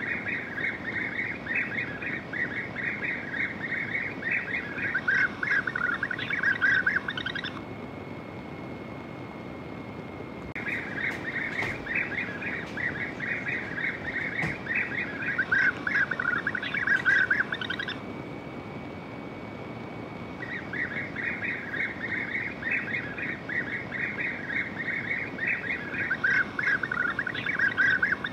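A group of European bee-eaters calling: dense, rapid rolling trills in three stretches of about eight seconds each, with short pauses between them, over a steady background noise.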